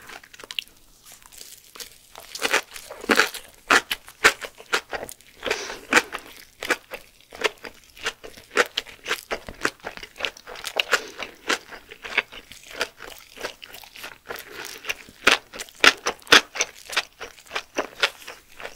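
Close-miked chewing of a laver-wrapped kimbap roll filled with fermented herring: irregular wet crunches and clicks, several a second.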